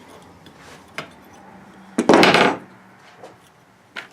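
Split copper pipe being worked flat against a steel block: a sharp metallic knock about a second in, then a louder clatter of metal on metal lasting about half a second around two seconds in.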